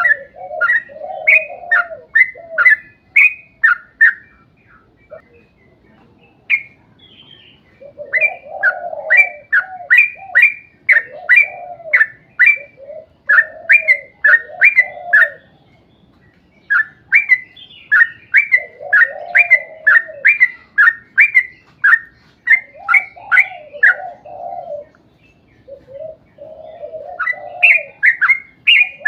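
Yellow-vented bulbul (trucuk) singing: rapid runs of short bubbly notes with lower gurgling phrases mixed in, in long bursts broken by short pauses.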